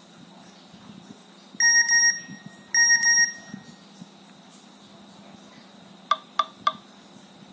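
Nokia N73 playing an electronic alert tone through its loudspeaker: two high double beeps about a second apart, then three short quick notes near the end.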